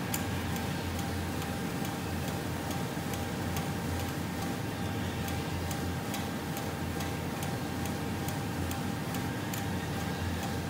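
Belt conveyor head drive running: the gear motor and pulley give a steady hum with a thin whine, and a regular light ticking comes about two or three times a second. The drive's shaft coupling runs badly misaligned because one of its elements is broken.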